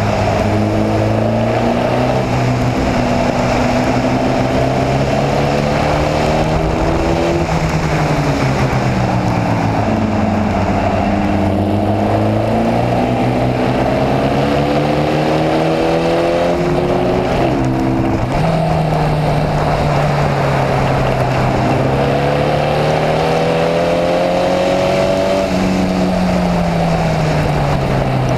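Formula Vee's air-cooled Volkswagen flat-four engine at racing speed, heard onboard with wind noise. The revs climb for several seconds under acceleration and then fall as the driver lifts and brakes for a corner, about three times.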